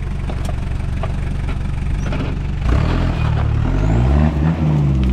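Toyota 4Runner's 1KZ turbo-diesel, converted to mechanical injection, pulling the truck at low speed up a rocky climb; it gets louder about three seconds in as the revs rise, with scattered clicks of stones under the tyres.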